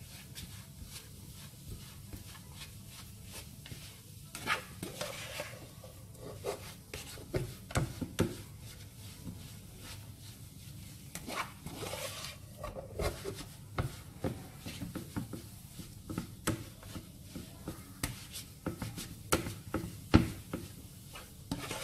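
A spatula pressing and scraping a thick mash of sweet potato halua around a nonstick frying pan, in irregular strokes with light knocks against the pan.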